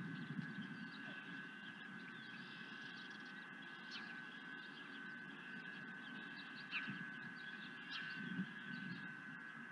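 Faint outdoor birdsong: scattered short chirps and calls from small birds, with one falling call about seven seconds in, over a steady high-pitched whine and a low rumble.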